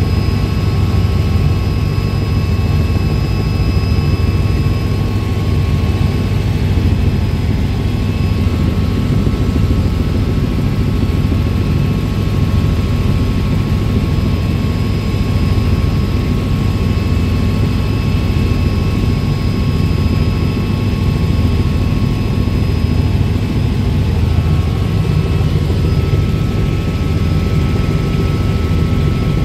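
Robinson R66 turbine helicopter in cruise flight, heard from inside the cabin: a loud, steady low drone of rotor and engine, with a few faint, steady high whines above it.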